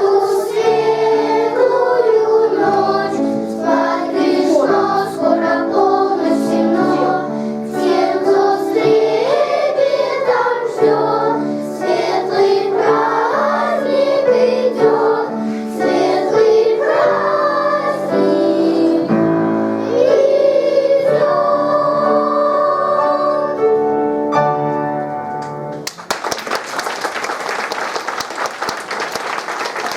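Children's choir singing a song through to its final held note, which stops about 26 seconds in. Audience applause follows.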